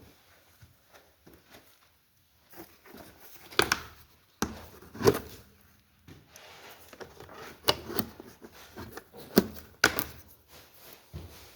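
Irregular knocks, clicks and rustling at close range, the loudest five or so spread over the stretch, with no engine running.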